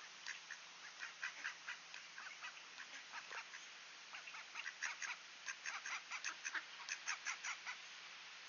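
Mallard ducks quacking in a rapid run of short calls, a few a second, with a brief lull about halfway and stopping shortly before the end.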